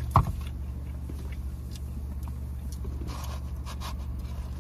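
Steady low rumble of a car idling, heard from inside the cabin, with a sharp knock just after the start and a few faint rustles about three seconds in.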